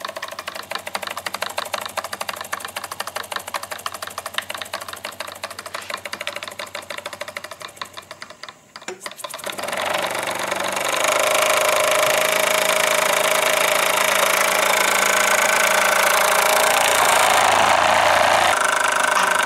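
Small model steamboat engine running on compressed air instead of steam, making a fast, even chuffing of many quick exhaust beats. About eight seconds in it falters almost to a stop. Then a louder, steady hiss of air with a held whine takes over.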